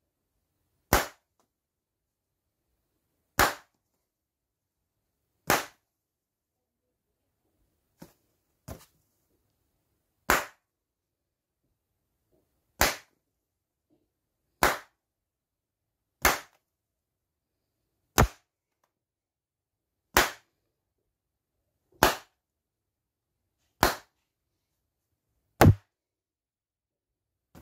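Small latex balloons popped one after another, each a single sharp bang, about one every two seconds. Two of the pops, about a third of the way through, are fainter.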